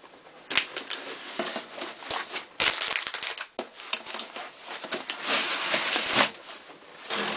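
Plastic packaging crinkling and rustling in irregular bursts as hands handle anti-static bags and bubble-wrapped parts in a foam-lined box, loudest about a third of the way in and again near the end.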